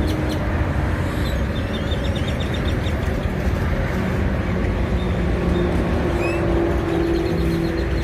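Small birds chirping, with short rising calls and quick runs of clicks, over a steady low motor rumble.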